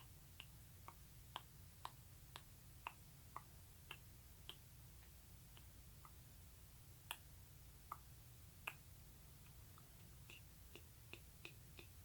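Faint, wet ASMR mouth clicks from lips and tongue, about two a second at first, then sparser, with a quick run of them near the end, over a low steady background hum.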